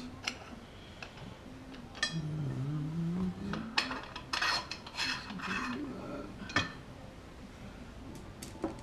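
Steel bolts clinking and rattling against aluminium mill rails as they are handled and set in place, a series of separate sharp clinks scattered irregularly.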